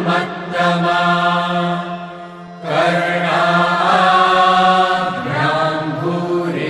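A single voice chanting a Hindu mantra in a slow, melodic line over a steady low drone, with a brief pause for breath about two seconds in.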